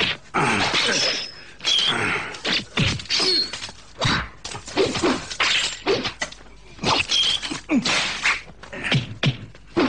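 Film fight-scene sound effects: a quick run of blows and swishes, one after another, mixed with short shouts and grunts from the fighters.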